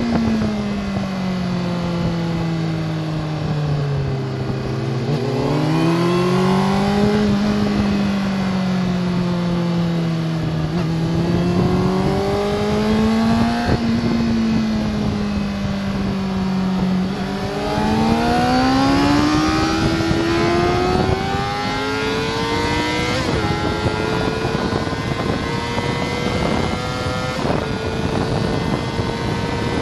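Sport motorcycle engine heard from the rider's seat on a race track. The note falls off under braking in the first few seconds and rises and dips through the corners, then climbs hard under full acceleration with two quick upshifts near the end, as the wind rush grows.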